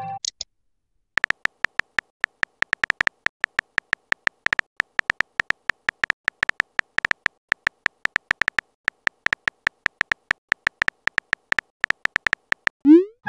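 Phone-keyboard typing sound effects: a long run of short, sharp clicks, several a second and unevenly spaced, as a text message is typed. Near the end a short rising swoop marks the message being sent.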